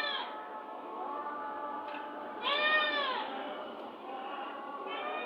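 A cat meowing: a drawn-out meow about two and a half seconds in, each call rising then falling in pitch, with another meow just at the start and a fainter one beginning near the end.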